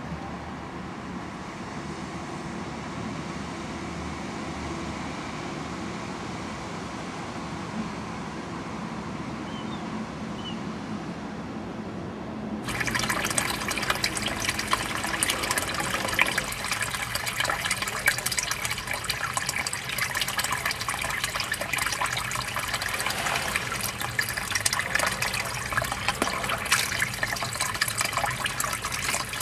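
Water of the river Pader flowing with a steady, soft rush. About halfway through, the sound changes suddenly to louder, brighter rushing and splashing water.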